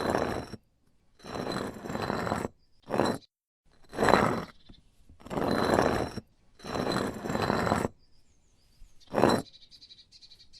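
A heavy object dragged across a hard surface in a series of short scrapes, about eight or nine strokes, each under a second long with short gaps between. A steady high ringing tone runs through most strokes.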